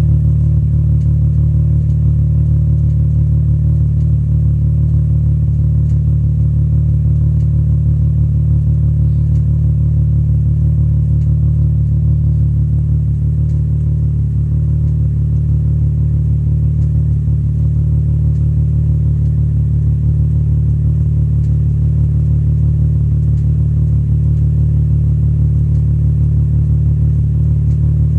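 Volkswagen VR6 six-cylinder engine idling steadily, with what the owner calls a slight rough idle.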